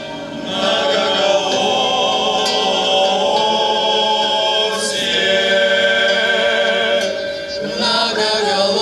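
A choir sings slow, drawn-out chords in several parts, the voices wavering with vibrato and moving to a new chord a few times. This is the final held phrase of the song's refrain.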